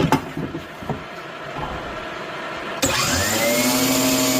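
A few knocks of handling, then an electric power tool switches on near the end, its motor whine rising quickly and settling at a steady speed.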